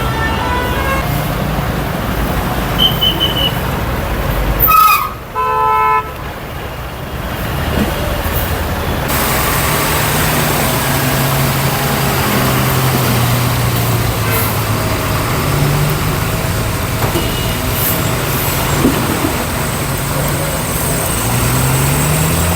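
Road traffic jam: vehicle engines running, with a horn honking about five seconds in after a short high beep just before it. An engine revs up near the end.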